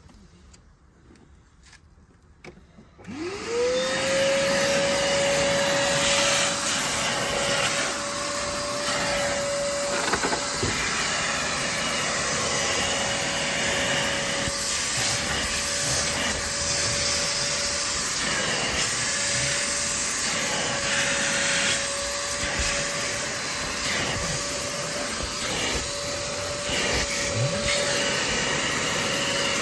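Kiwi upholstery washing machine switched on about three seconds in: its suction motor spins up quickly to a steady high whine over a loud rushing of air, the rush rising and falling a little at times.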